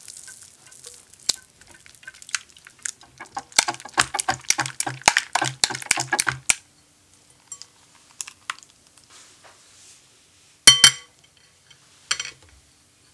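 Wire balloon whisk beating an egg and honey mixture in a glass bowl, its wires ticking rapidly against the glass, fastest from about three and a half to six and a half seconds in. Near the end, one loud ringing clink of metal on the glass bowl, then a lighter knock.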